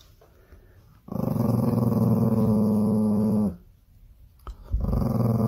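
A small dog growling: two long, low, steady growls with a short pause between them, the second starting near the end.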